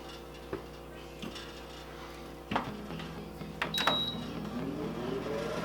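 Emeril Lagasse Power Air Fryer 360 oven restarting. After a few clicks its fan starts a steady hum, the control panel gives one short high beep, and the fan's whine rises in pitch as it spins up.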